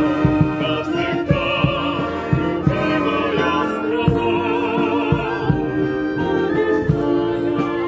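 A mixed choir singing with vibrato, accompanied by a wind band of brass and woodwinds (tubas, euphoniums, saxophones, clarinets, flutes), over a steady low beat.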